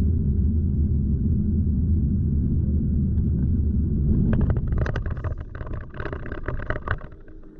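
Car interior road and engine rumble, steady and low. About four seconds in the tyres run onto cobblestones: the rumble eases and a run of irregular knocks and rattles follows, dying away near the end as the car slows.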